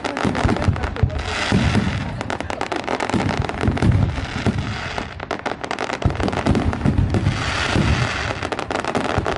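Fireworks display: a continuous run of bangs and crackling over deep booms, with thick clusters of rapid sharp pops about a second in and again around five seconds in.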